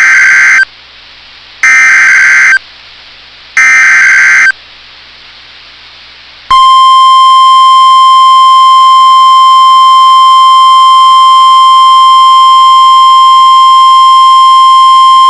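NOAA Weather Radio's Emergency Alert System SAME header: three loud one-second bursts of warbling data tones, about a second apart. About two seconds later the steady single-pitch 1050 Hz warning alarm tone sounds for about nine seconds and cuts off, marking the start of a new severe thunderstorm warning broadcast.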